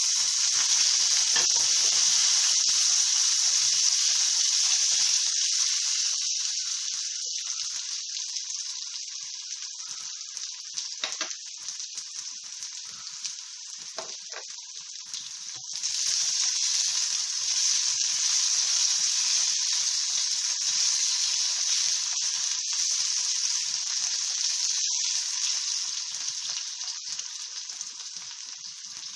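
Cut potato pieces sizzling as they fry in hot oil in a kadai. The sizzle fades, surges again about halfway through, then dies down, with a few light knocks of the spatula against the pan.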